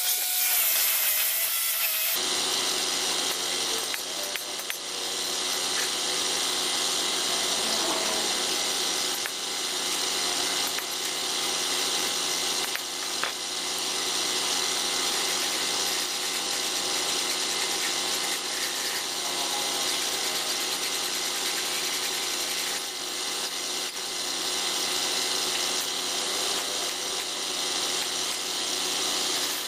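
Angle grinder with an abrasive wheel scraping rust off a steel bracket, cut off about two seconds in. Then a steady hiss over an even machine hum, from a compressor-fed paint spray gun spraying the air tank red.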